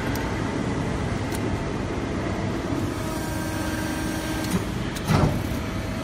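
Steady machine hum of a powered-up CNC hydraulic press brake, with a short knock about five seconds in.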